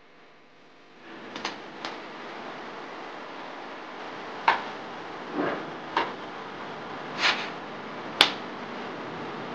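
Hot soy milk draining through a cloth filter bag hung from a bamboo cross-frame into a bucket, a steady rush of liquid starting about a second in. Over it come about six sharp knocks and clacks from the bamboo frame as it is rocked to work the milk through.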